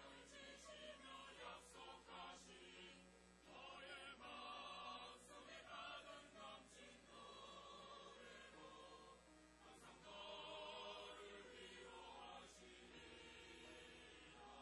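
Mixed church choir of men's and women's voices singing a Korean hymn in long held phrases, with the words 'the Lord keeps you and always leads you on the right path'.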